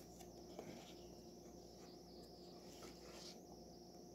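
Near silence: room tone with a faint steady hum and a high hiss, and a few soft paper rustles from a large record booklet being handled.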